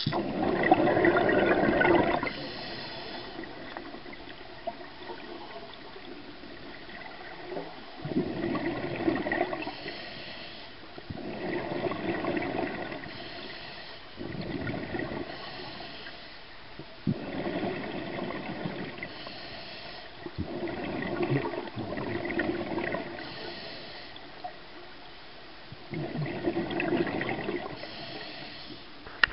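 Scuba diver breathing through a regulator underwater: a rush of exhaled bubbles every few seconds, with a short hiss from the regulator on each in-breath between them.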